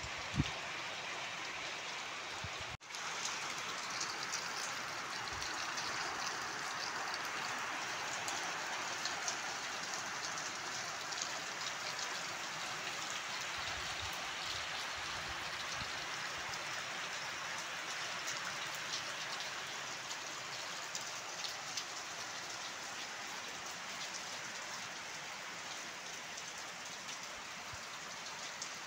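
Steady rain falling: a continuous hiss with scattered ticks of drops hitting wet surfaces. It cuts out for an instant about three seconds in.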